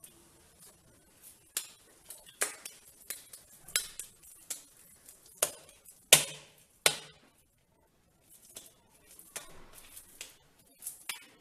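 Sharp taps and clinks of hands working on a stainless steel plate: a series of separate knocks, the loudest a little after six seconds in, then a short lull and softer ticks.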